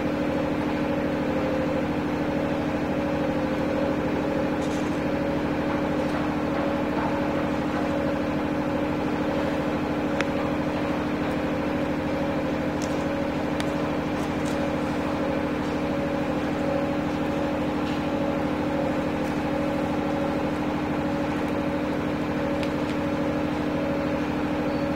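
Steady machine hum, like a motor or engine running at a constant speed, with a few faint clicks.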